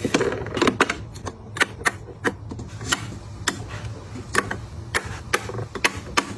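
Lipstick tubes being set down into the compartments of a clear acrylic lipstick organizer: an uneven run of sharp clicks and taps of the cases against the acrylic.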